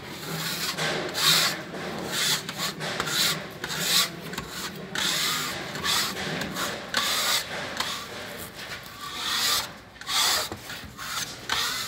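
A hand spatula scraping gypsum putty over mesh joint tape on fire-rated gypsum board, in a run of uneven strokes about one or two a second.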